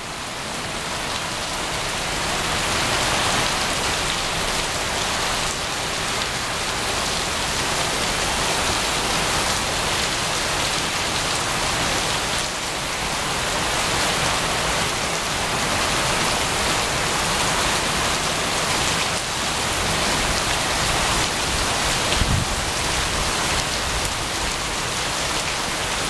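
Torrential typhoon rain pouring down onto wet paving: a dense, steady hiss of rain.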